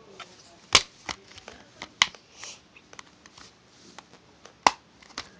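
Plastic Blu-ray case and its paper inserts being handled: a run of small rustles and ticks, with three sharp plastic clicks, one under a second in, one about two seconds in and one near the end.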